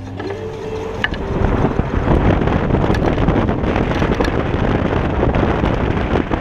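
Wind buffeting the microphone of an action camera mounted low on a Kaabo Wolf King GT electric scooter moving at speed, mixed with road and tyre noise. Near the start a faint whine rises in pitch as the scooter speeds up. The wind noise then grows louder about two seconds in.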